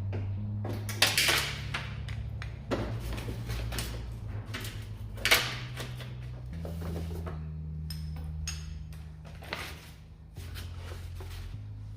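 Background music with a steady, shifting bass line, over a series of sharp clicks, knocks and clatter from parts and tools being handled, loudest about a second in and again a little after five seconds.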